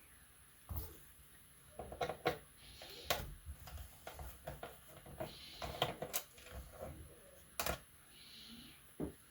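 Irregular clicks, taps and light knocks from handling the plastic case and small parts of an HP G60 laptop and a screwdriver during disassembly, with the sharpest click about three-quarters of the way through.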